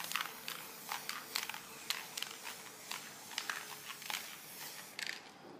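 Aerosol can of spray varnish hissing steadily as it is sprayed over fabric, with irregular faint ticks.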